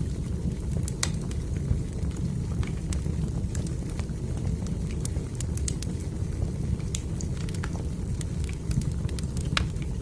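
Wood fire burning in a fireplace, crackling with irregular sharp pops over a steady low rumble.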